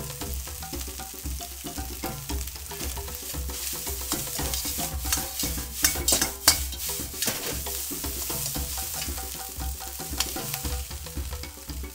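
Fried rice sizzling in a hot wok while a metal ladle stirs and scrapes it. About six seconds in there are a few louder clanks of ladle on wok as the wok is tossed.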